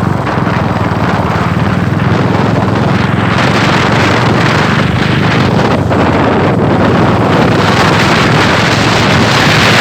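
Royal Enfield Classic 350's single-cylinder engine and exhaust running steadily and slowly getting louder, with wind noise on the microphone.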